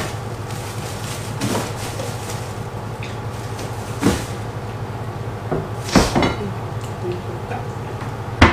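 Knocks and bumps from rummaging in a low kitchen cupboard, with the cupboard door being handled, over a steady low hum. The loudest knocks come about six seconds in and just before the end.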